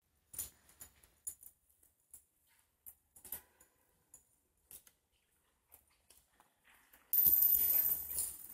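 Faint, irregular footsteps on the floor of a quiet church interior. About seven seconds in, a louder burst of noise starts and fades over a second or so.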